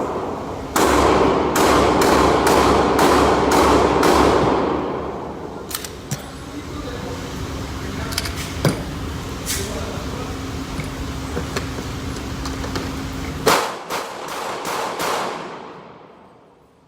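Gunfire at a shooting range: a rapid string of about eight shots, roughly two or three a second, in the first few seconds, each with a long echoing tail. Scattered single shots follow, then another quick string of shots near the end.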